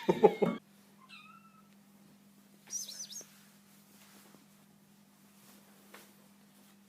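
Cat meowing: a faint short meow about a second in, then a higher, louder call near three seconds in. A loud noisy burst ends just before the first meow, and a low steady hum lies underneath.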